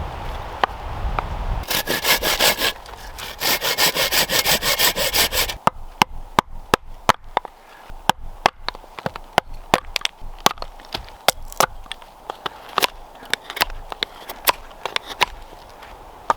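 Hand saw cutting through wood in quick, even strokes for about four seconds, then scattered sharp clicks and snaps.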